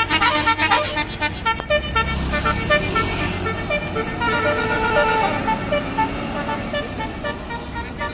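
Tour bus's multi-note basuri horn playing a melody, quick short notes at first and longer held notes from about two seconds in, over the low running of the bus engine.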